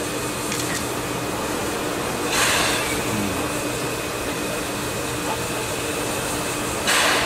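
Standing C56 steam locomotive hissing steam steadily over a low steady hum, with short, louder bursts of hiss about two and a half seconds in and again near the end.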